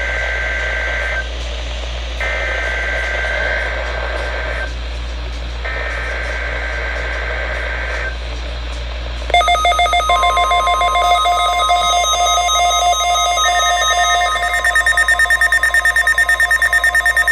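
Emergency Alert System SAME header data bursts on NOAA weather radio: three raspy two-tone digital warbles, each a second or two long, with short gaps between them. About nine seconds in, the weather alert radio's own electronic alert tone starts sounding, and it turns into rapid pulsing beeps near the end.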